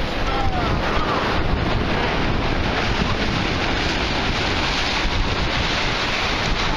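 Wind buffeting the microphone over the steady wash of sea surf.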